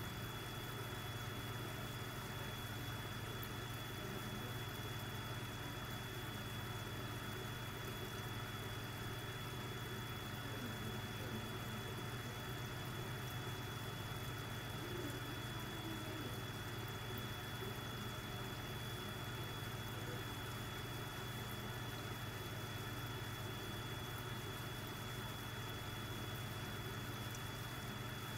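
Aquarium air pump humming steadily, with a thin high whine above the hum.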